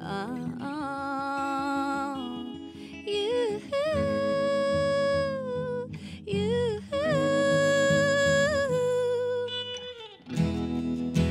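Live acoustic guitar and hollow-body electric guitar playing, with a woman singing long wordless held notes that waver slightly over the chords. The music drops away briefly about ten seconds in, then comes back in.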